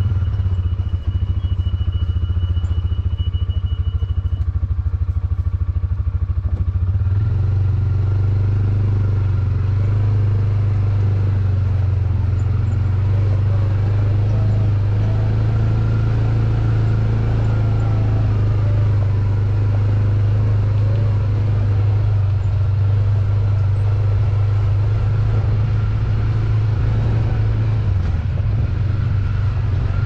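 Honda TMX 125 Alpha motorcycle's single-cylinder four-stroke engine running steadily under way. Its note shifts about seven seconds in.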